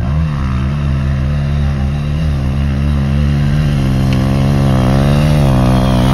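Small four-stroke single-cylinder dirt bike engine revving under throttle as the bike climbs a gravel slope, its pitch wavering with the throttle and rising near the end as the front wheel comes up into a wheelie.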